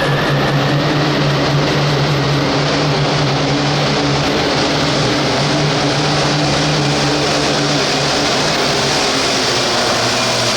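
Hot farm pulling tractor's turbocharged diesel engine running hard at high, steady revs, with a high turbo whine over the engine note.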